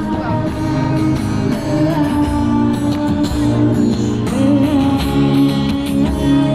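Music with a singing voice over a steady bass line, held notes running throughout.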